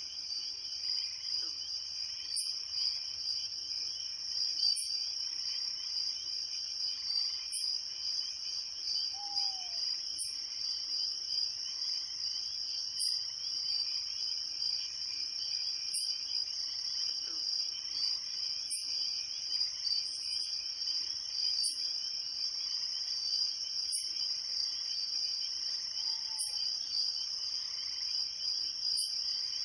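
Crickets chirring in a steady dense chorus, with a sharper high chirp repeating about every two and a half to three seconds. A few faint, short, falling calls sound lower down.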